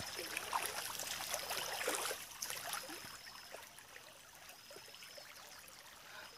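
A small, shallow rocky stream trickling steadily, a little louder in the first couple of seconds. A faint, thin high tone comes and goes a few times.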